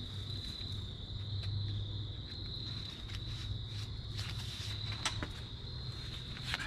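Steady high-pitched chorus of night insects in the woods at dusk, with a few brief clicks and rustles from gear being handled, one about five seconds in and another near the end.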